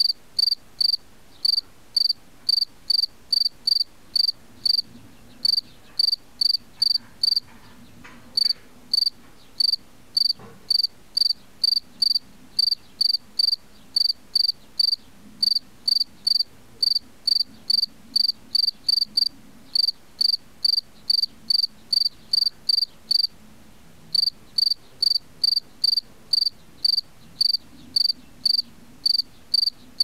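A male field cricket singing its calling song at the burrow entrance: a long run of short, shrill chirps, about two to three a second, broken by a few brief pauses.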